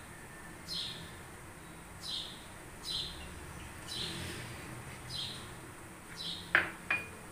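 A bird chirping in the background: short, high, falling chirps repeated roughly once a second. A sharper, louder sound comes near the end.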